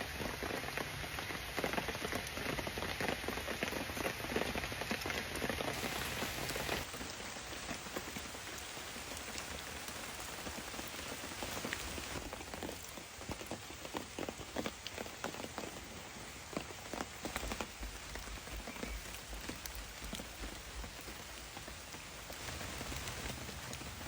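Rain falling, with a steady patter of many small drops.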